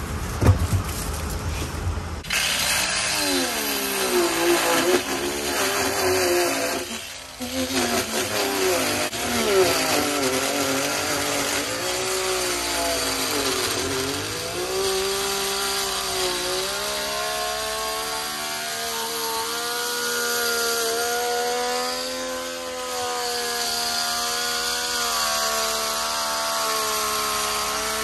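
Angle grinder with a homemade carbide-tipped cutter slicing around an old steel-belted tyre. It starts about two seconds in, after a few knocks. Its whine sags and picks up again as the blade bites into the rubber and steel belt, and runs steadier in the second half.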